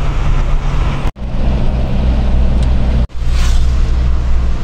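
Steady engine and road rumble heard from inside a moving car, broken off abruptly twice by brief dropouts, with a short rushing hiss a little after three seconds in.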